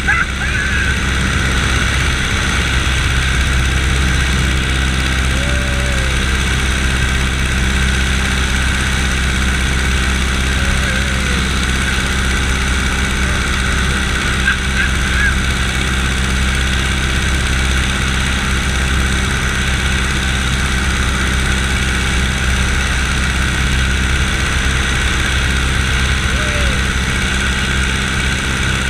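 A biplane's radial engine and propeller running steadily at cruise power, a constant drone, heard from the top wing under heavy wind rush on the microphone.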